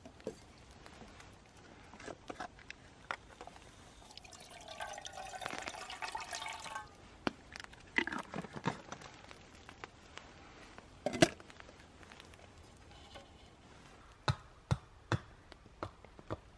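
Water poured into a metal camping pot for two to three seconds, the pitch rising as it fills. Then a few sharp metal clinks and knocks, one of them loud. Near the end a quick run of hatchet blows chops into a wooden log.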